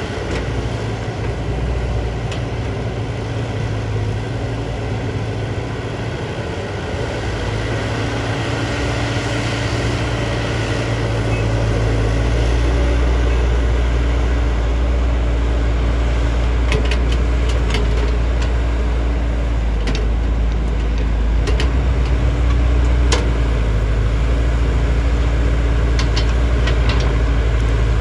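JCB JS205 tracked excavator's diesel engine running steadily, coming under heavier load about eleven seconds in. Scattered sharp knocks and clanks in the second half.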